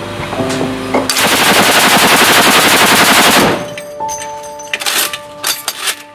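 Automatic machine-gun fire: a sustained burst of very rapid shots lasting about two and a half seconds, followed by scattered single cracks.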